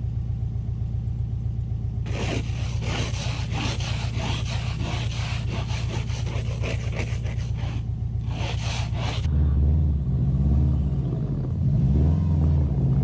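Subaru Impreza's flat-four engine idling while a snow shovel scrapes packed snow in quick repeated strokes. About nine seconds in, the shovelling stops and the engine revs up and down as the car pulls out through the snow.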